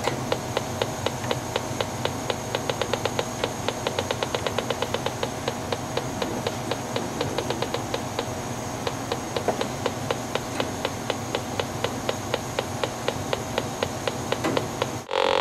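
Electronic combustible-gas leak detector ticking as its probe is moved around a furnace gas valve and pilot tubing. The ticks speed up to a fast rattle from about two to five seconds in, then slow again. The faster ticking marks gas, here a leak at the pilot tube.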